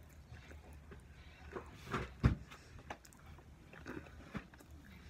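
Close-miked mouth sounds of chewing chocolate cake roll: soft wet clicks and smacks at irregular intervals, with a louder, deep knock about two seconds in.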